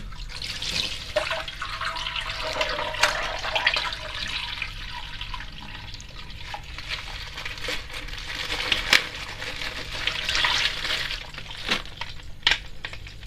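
Water pouring and splashing out of a plastic water bag, with a sharp snap at the start and a few sharp plastic clicks and knocks.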